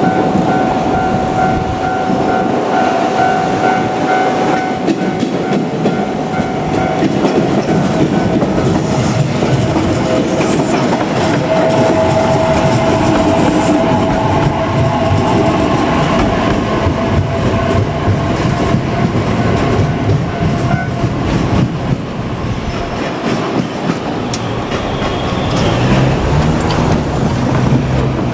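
JR Kyushu 817 series electric train passing over a level crossing, its wheels clattering over the rail joints as the cars go by. A steady high ringing tone sounds through the first several seconds.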